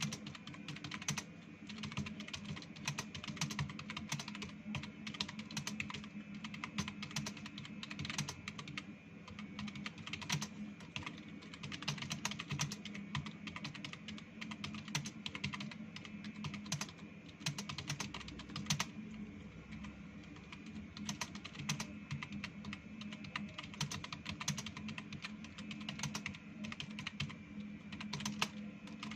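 Computer keyboard typed on fast and without a break, a rapid, uneven run of key clicks over a steady low hum.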